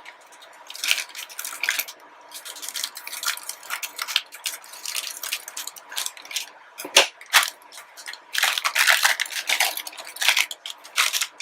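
Plastic bags of model-kit runners crinkling and rustling as they are opened and handled, in irregular bursts, with a couple of sharp clicks about seven seconds in.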